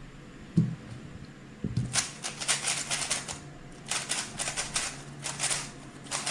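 3x3 speedcube being turned very fast during a solve: dense bursts of plastic clicking and clatter starting about two seconds in, broken by a couple of short pauses. A dull thump comes just before, about half a second in.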